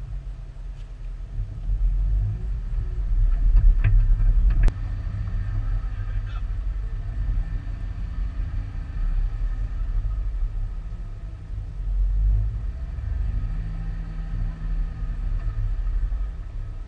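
Jeep Wrangler driving slowly off-road over slickrock and sand: a low, uneven rumble of engine and drivetrain picked up by a hood-mounted camera. A sharp knock nearly five seconds in, after which the rumble drops a little.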